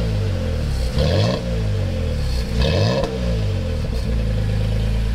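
Toyota Tacoma's exhaust, through a newly fitted MBRP turn-down cat-back muffler, revved in three quick blips and then settling back to idle about four seconds in.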